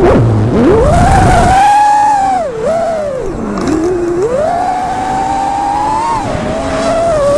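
FPV quadcopter's motors whining, the pitch swooping up and down with the throttle: a sharp drop and climb right at the start, dips about two and a half and three and a half seconds in, then a steady high whine.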